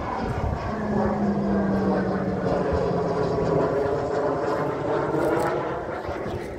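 Military aircraft flying overhead with a steady engine drone.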